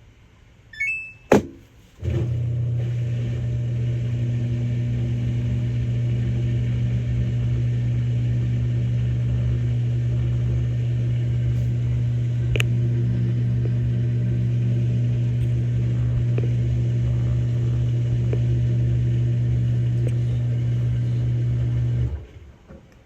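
A short electronic beep and a click, then a Samsung Grande AI drum washing machine runs with a steady low hum at the start of its spin-only cycle, stopping suddenly after about 20 seconds.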